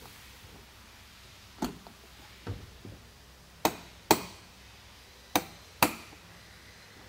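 Spring latches of a Fold-A-Cover G4 Elite tonneau cover panel clacking as they are closed by hand and released, six sharp clacks in all, twice as a pair about half a second apart. The split pairs are the two latches releasing at different moments: their timing is off.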